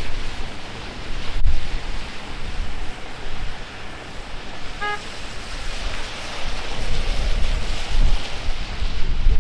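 Heavy rain hissing steadily on the street, with gusts of wind buffeting the microphone in low rumbles. About halfway through, a car horn gives one very short toot.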